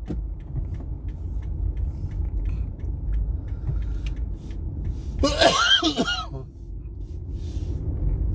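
Steady low rumble of a car driving, heard inside the cabin, with one loud cough from a person about five seconds in, lasting about a second.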